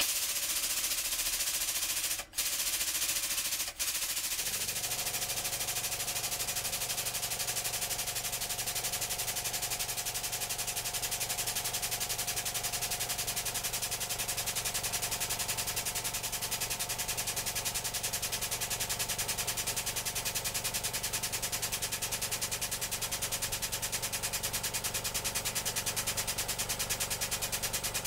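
Hydraulic press pump running with a fast, even rattle while the ram slowly lowers. A steady hum joins about four seconds in.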